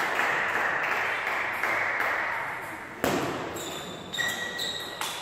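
Celluloid-style table tennis ball knocking back and forth off the bats and table in a rally, each hit echoing and dying away slowly in a large sports hall. A few short, high squeaks come near the end.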